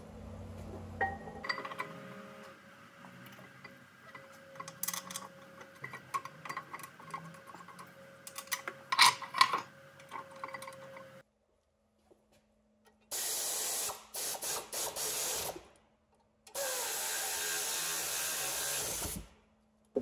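Tools and metal brake parts clinking and knocking during a rear brake reassembly. Later come two loud, steady spells of noise, each a couple of seconds long.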